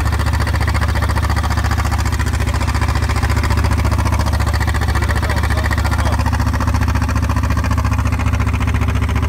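Small wooden fishing boat's engine running steadily underway, a constant low drone that holds at the same pitch and level throughout.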